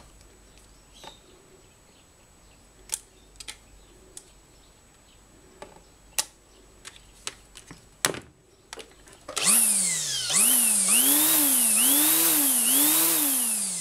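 Small clicks of the trimmer head and nylon line being handled, then the EUROE electric string trimmer's motor switched on about nine and a half seconds in: it whines up to speed and its pitch rises and falls about four times before it starts to wind down. This is a test run after the loose motor mounting bolts, which had let the rotor rub the stator, were tightened: the motor spins freely again.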